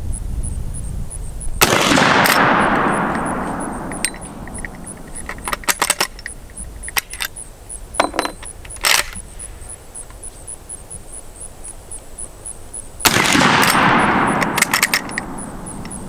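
Two shots from a .45-70 Marlin 1895 lever-action rifle firing black-powder cartridges, about eleven seconds apart, each followed by an echo dying away over about two seconds. Between and after the shots come sharp metallic clicks of the lever being worked and a fresh cartridge being loaded.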